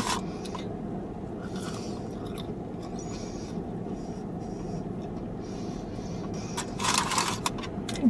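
Close-up chewing of fried cheese curds with light crinkling of the paper food wrapping, over a steady low hum; a louder burst of crinkly noise comes near the end.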